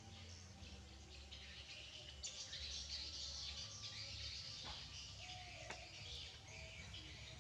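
Birds chirping in a dense, overlapping chorus of short high calls, busiest from about two seconds in, over a faint low hum.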